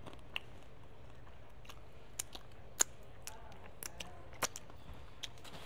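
Close-up eating noises: scattered sharp clicks and smacks from chewing and from fingers pulling apart a head-on shrimp, loudest about three and four and a half seconds in, over a low steady hum.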